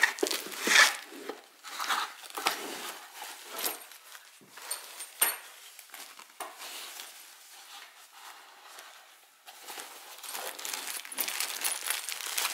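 Cloth dust bag and plastic wrapping being handled: irregular rustling and crinkling, with a few sharp ticks.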